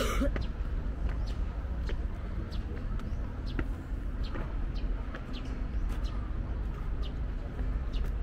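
Outdoor ambience: a steady low rumble with many short, high ticks scattered through it, and a brief burst of noise at the very start.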